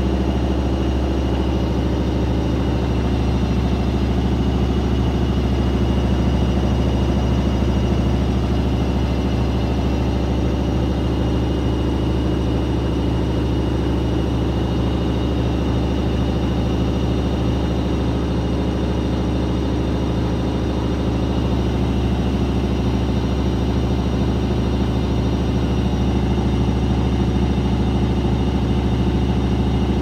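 Daewoo DWD-FT1013 front-loading washing machine in its 800 rpm spin with an unbalanced load, giving a loud, steady low hum and whir.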